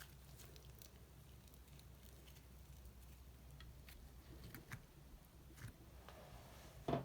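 Faint, soft squishing and light tapping of slime being stirred and pressed, with a short, louder squelch near the end.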